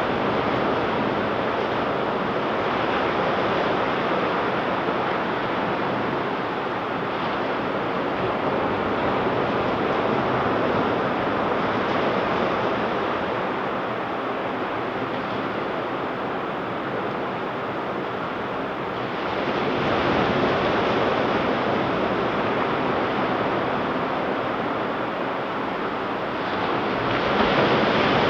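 Ocean surf washing onto a beach: a continuous rush of breaking waves, swelling louder about two-thirds of the way through and again near the end.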